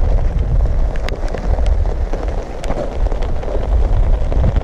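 Wind buffeting the microphone in a loud, uneven low rumble, with scattered taps of raindrops striking the umbrella overhead.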